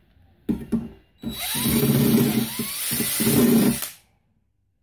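DeWalt cordless drill spinning a step bit in the edge of a hole in stainless steel sheet, deburring it. It runs steadily for about two and a half seconds and stops abruptly, after two short knocks in the first second.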